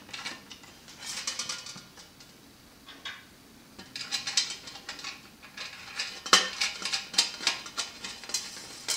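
Scattered light metallic clicks and scrapes of a lock nut being turned by hand onto a threaded nub through a sheet-metal light-fixture pan, with a sharper click about six seconds in.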